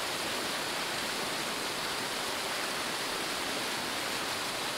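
Shallow rocky mountain creek running over stones: a steady, even rush of water.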